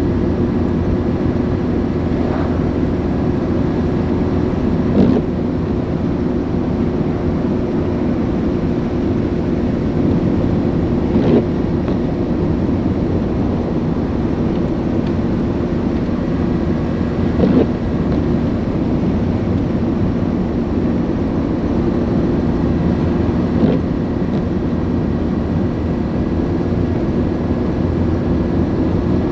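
Steady road and engine drone heard from inside a moving car, with a short knock repeating about every six seconds.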